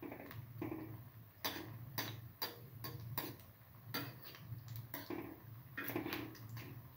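Potato and corn flour patties shallow-frying in hot oil: a sizzle broken by irregular sharp crackles and pops, over a low steady hum.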